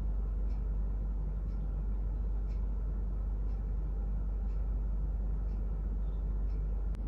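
Steady low rumble like a vehicle in motion, with a faint tick about once a second. It ends in a sharp click near the end.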